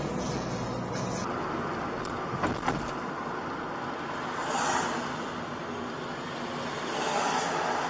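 Car driving, heard from the dashcam inside the cabin: steady road and tyre noise, on a wet road after a cut about a second in. Two sharp clicks come about two and a half seconds in, and the tyre hiss swells twice as vehicles pass on the wet road.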